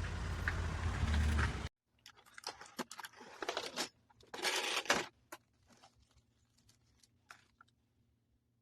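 Steady outdoor background noise with a low hum, which cuts off abruptly about a second and a half in. Then quiet handling noise: scattered clicks and rustles, with a louder crinkling rustle about four and a half seconds in.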